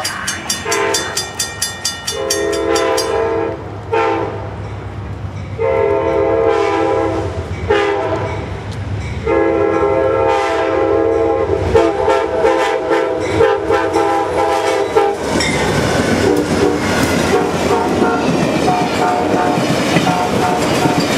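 Amtrak P42DC diesel locomotive horn blowing the grade-crossing signal: long, long, short, then a final long blast held about six seconds, over a ringing crossing bell. The horn stops as the two locomotives and their passenger cars rush past, with engine noise and the clickety-clack of wheels over rail joints.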